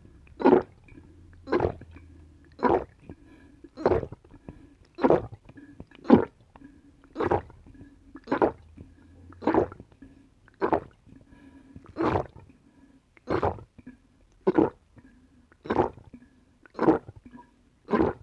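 Close-up gulping as a person chugs coconut water without stopping, one loud swallow about every second in a steady rhythm.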